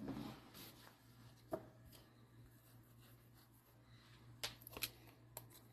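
Near silence with a few faint clicks and rustles of trading cards and card packaging being handled: one click about a second and a half in, and a small cluster of clicks near the end.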